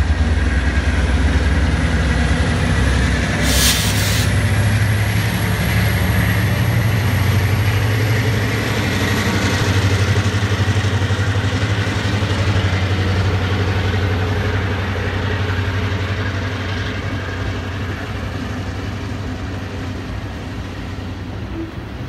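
Canadian Pacific diesel freight locomotives passing with a deep, steady engine drone, followed by boxcars rolling by as the engine sound fades over the last ten seconds. A brief hiss cuts in about four seconds in.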